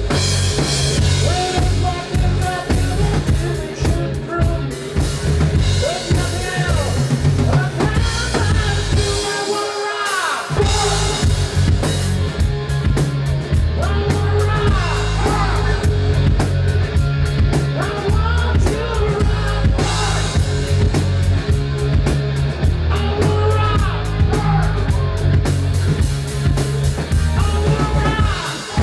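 Live rock band playing: distorted electric guitars, bass guitar and drum kit. The bass and drums drop out for about a second roughly ten seconds in, then the full band comes back in.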